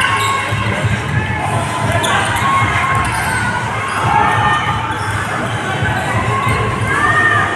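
Basketball game court sound: the ball being dribbled and sneakers giving short high squeaks on the hardwood, over a steady arena crowd din.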